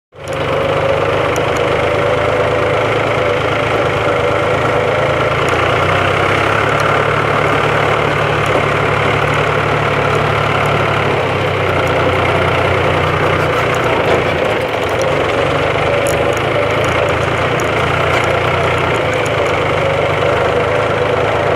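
Diesel engine of farm machinery running steadily, a continuous loud drone whose low hum changes slightly about eleven seconds in.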